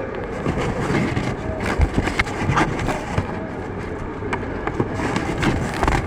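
Busy city street traffic: bus and minibus engines running and passing, with scattered short knocks and clatter through the steady rumble.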